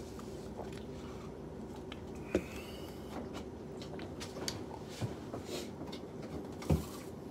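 Quiet room tone with a steady low hum, a sharp knock a couple of seconds in, and a louder dull thump near the end as a person gets up from the table.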